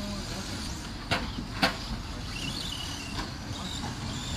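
Electric 1/10-scale RC stadium trucks of the 13.5-turn brushless class running on a dirt track: a steady hum of motors and tyres, with faint high motor whines. Two sharp clacks about half a second apart come a little after one second in.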